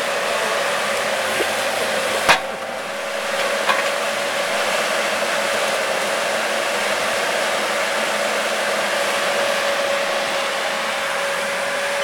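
Excavator running steadily, its engine and hydraulics giving a constant noise with a steady whine. A single sharp crack about two seconds in and a smaller knock a second later come from the machine working on the car body.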